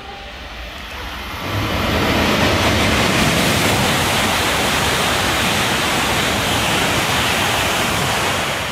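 E5 and E6 series shinkansen, coupled, passing through a station at high speed without stopping. A loud rush of air and wheel noise swells over the first second and a half, holds steady as the cars sweep by, and eases off near the end.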